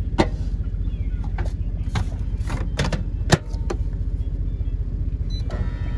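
Proctor Silex microwave being loaded and started: a plastic container set down inside with a few clacks, the door shut with a loud clunk about three seconds in, keypad beeps, then the microwave humming as it starts near the end. A steady low rumble runs underneath.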